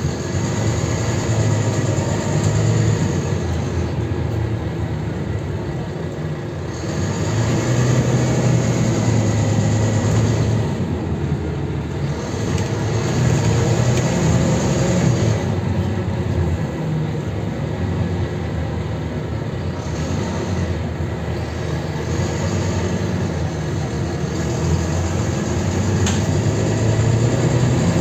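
Interior running noise of a Volvo B9TL double-deck bus, its six-cylinder diesel engine humming under way, heard from the lower deck along with road noise. The sound swells and eases in stretches of a few seconds as the bus drives.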